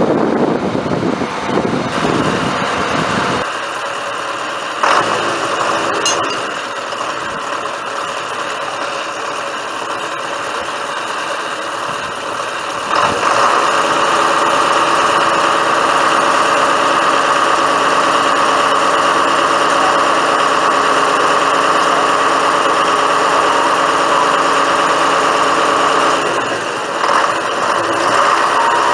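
Truck-mounted crane's engine running steadily, stepping up to a higher, louder speed about a third of the way through as the crane works its lift, then dipping briefly near the end before picking up again.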